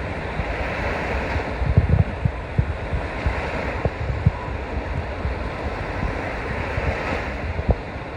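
Water rushing and splashing around a two-person outrigger canoe, the splashing swelling up a few times, with wind buffeting the microphone.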